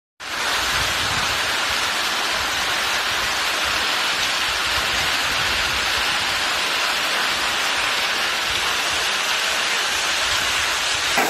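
A heavy hailstorm downpour of rain and hail, a steady dense rush of falling water and ice on the ground and roofs.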